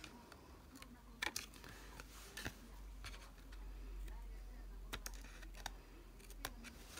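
Scissors snipping paper, trimming the excess off the edge of a card: a few faint, irregularly spaced snips and clicks.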